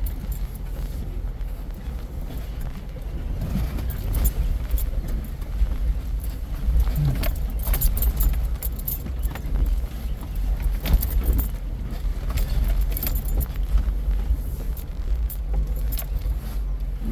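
A four-wheel-drive Jeep crawling over a rough dirt trail, heard from inside the cabin: a steady low engine and road rumble with frequent clinks and rattles of loose gear as it bumps along.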